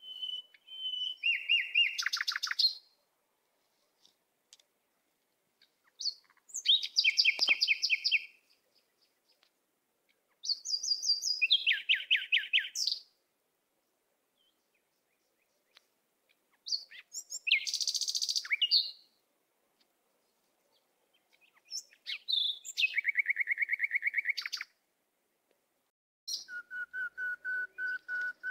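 A songbird singing six short phrases about five seconds apart, each a quick run of rapidly repeated trilled notes.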